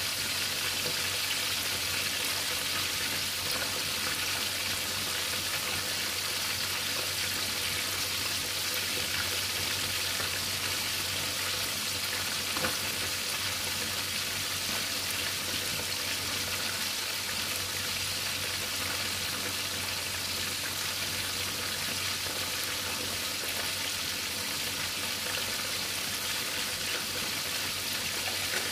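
Whole tilapia deep-frying in hot oil: a steady sizzle of bubbling oil around the fish. A single small tick comes about twelve seconds in.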